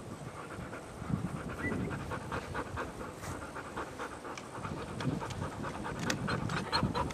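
A dog panting hard in quick, even breaths, about four or five a second.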